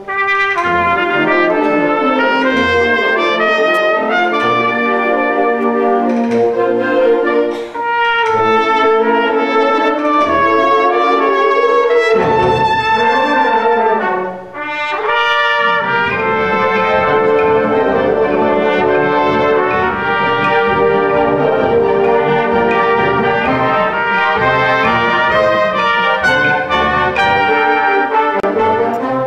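Concert band playing, with the brass (trumpets and trombones) prominent in held chords, and a brief break about halfway through.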